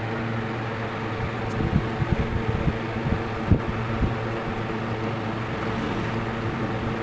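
Mini air cooler's small electric fan motor running with a steady hum. Several light knocks come in the middle, the sharpest about three and a half seconds in.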